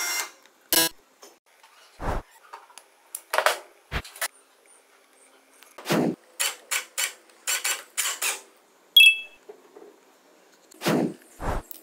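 A series of separate small clicks and knocks from handling a drill's metal keyless chuck and a thin drill bit, including a quick run of clicks in the middle. A short metallic ping comes about nine seconds in.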